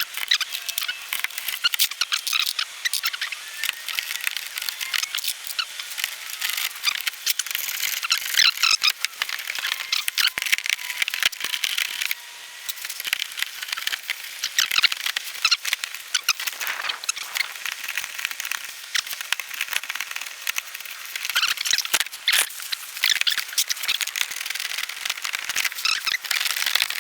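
Hands and tools working a car's ambient temperature sensor and its connector loose: a busy run of small irregular clicks, scrapes and rattles. The sensor had short-circuited after water got into it.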